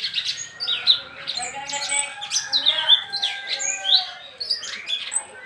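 Caged orange-bellied-type leafbird (cungkok) singing a fast, varied string of chirps and whistled notes without pause.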